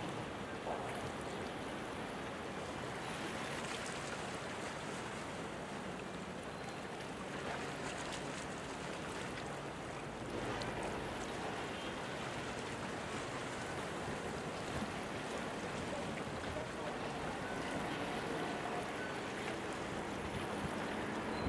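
Steady harbour background noise: an even wash of water and wind, with a faint low hum in the later part.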